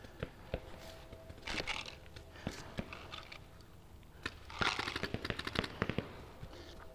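Paintball markers firing across the field: scattered sharp pops, then a quick string of many shots a little past halfway.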